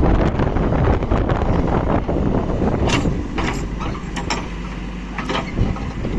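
Heavy farm vehicle's engine running under load. It eases off about halfway through with several sharp metallic knocks, then picks up again near the end.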